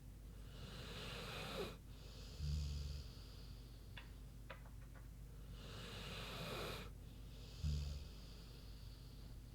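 American bulldog snoring in deep sleep: two slow breaths about five seconds apart, each a long airy, wheezy draw followed by a short low snore, the loudest sound. A few faint clicks fall between the two breaths.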